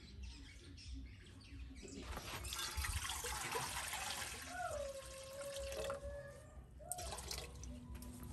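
Water poured from a plastic jug into an aluminium cooking pot, splashing and trickling for a few seconds from about two seconds in.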